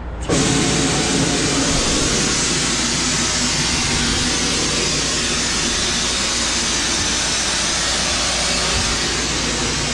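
Heavy truck running: a loud, steady rushing noise starts abruptly and holds over the low rumble of the engine.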